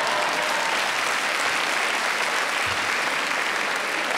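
A large theatre audience applauding steadily, with some laughter mixed in.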